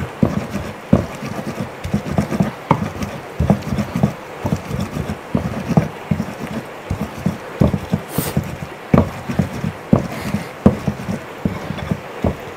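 Stone roller (lohoro) grinding a wet spice paste on a flat grinding stone (silauto): a steady run of rough scraping and knocking strokes of stone on stone, a few a second.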